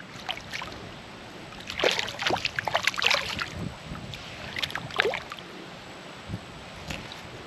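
Water splashing and sloshing in short bursts, a cluster about two to three seconds in and another around five seconds.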